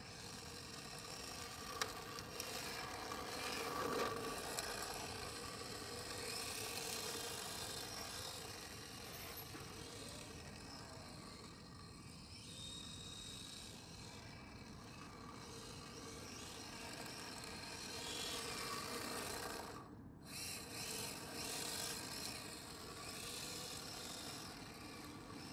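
D-Like LP-86 RC drift car sliding on asphalt: a rasping scrub of its hard drift tyres with the electric drivetrain's whine. It swells louder about four seconds in and again near the end as the car passes close.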